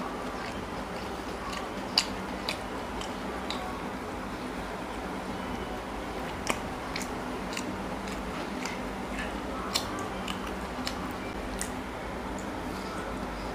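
A person eating porota and chicken curry by hand: chewing and wet mouth clicks, heard as scattered sharp clicks over a steady background hiss, the sharpest about two seconds in.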